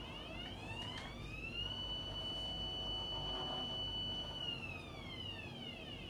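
Small electric motor whining as it spins up, runs at a steady pitch for a few seconds, then winds down near the end, typical of the marble-run doorbell's self-resetting mechanism.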